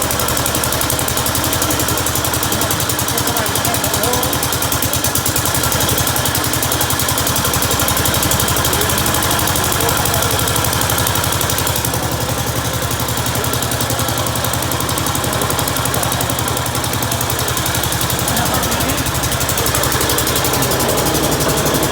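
Gravely two-wheel walk-behind tractor engine running steadily, with an even, rapid firing beat.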